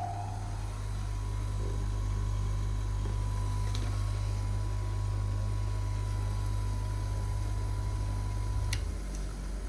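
SHINKO SHG-150M bench grinder running free at speed: a steady low motor hum with a faint steady whine. A sharp click about nine seconds in, after which the hum drops.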